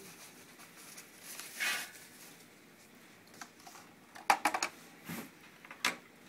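Foam wrapping bag rustling briefly as it is pulled off a Cisco 7942 IP phone. Then come sharp plastic clicks and knocks as the phone body and its stand are handled and set down on a table; the loudest is a quick cluster about four seconds in.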